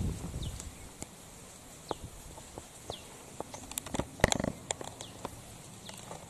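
Quiet outdoor ambience: scattered small clicks and rustles, with a few short, high, falling chirps about once a second. One sharper click comes about four seconds in.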